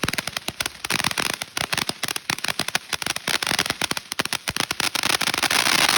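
Consumer fireworks going off: a rapid string of sharp cracks that thickens into dense, continuous crackling with a hiss.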